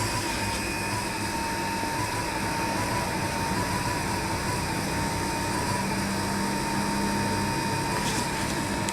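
Electric mixer motor running steadily while stirring a 1% xanthan gum solution: a steady, slightly wavering whine over a low hum. The owner reports a dull, burp-like noise from the mixer during stirring, though the fuse has never blown and the motor doesn't overheat.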